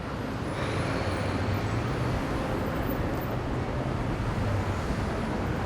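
Steady background din of a busy trade-show hall: an even wash of noise with a low hum underneath and no single sound standing out.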